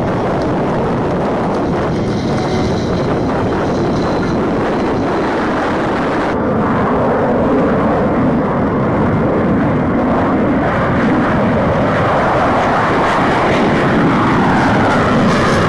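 USAF Thunderbirds F-16 jet taking off. Loud, steady jet engine noise grows louder about six seconds in as the jet accelerates down the runway and climbs away.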